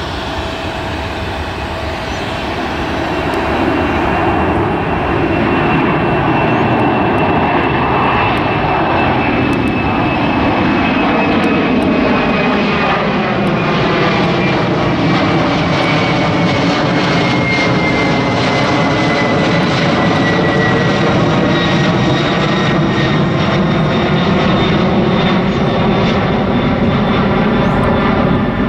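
Boeing 767 freighter's twin jet engines at go-around thrust as the airliner climbs away. It is a steady, loud jet roar that swells about four seconds in. A high whine slowly falls in pitch as the plane moves off.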